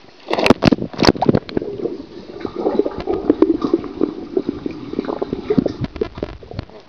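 A child splashing feet-first into a swimming pool, with a few sharp splashes in the first second or so, then churning, gurgling water heard through a microphone held underwater as he swims.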